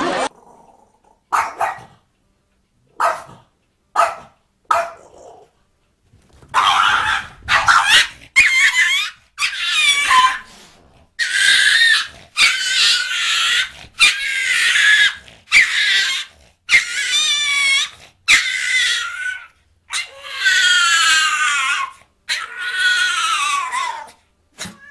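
A dog barking and yelping: a few short yips, then a long run of high-pitched barks and yelps about one a second, some with a wavering pitch.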